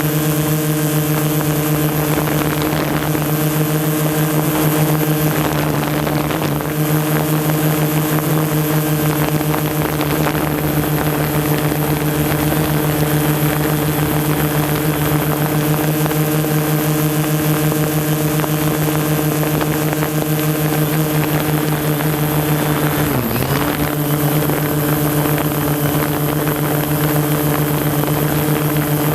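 Quadcopter drone's motors and propellers whining steadily while hovering, with a brief dip in pitch that recovers about 23 seconds in.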